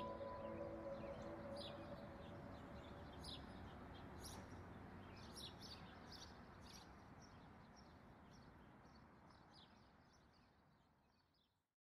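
Faint birds chirping in short, scattered calls over a steady low hiss, the whole ambience fading out to silence near the end.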